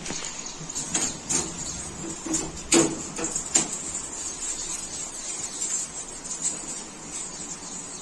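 Light clicks and knocks from the shelves and fittings of a new refrigerator as they are handled inside the open fridge, about half a dozen in the first few seconds with the loudest just before the three-second mark. A steady high hiss sits under them throughout.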